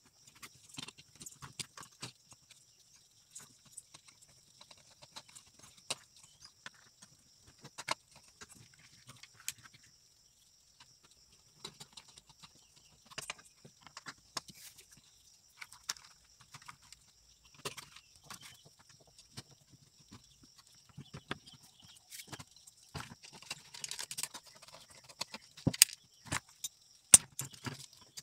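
Irregular clicks, taps and knocks of hard plastic and metal parts being handled as an induction cooktop's circuit board, cooling fan and copper coil are set into its plastic base; the sharpest knocks come near the end. A faint steady high hiss lies underneath.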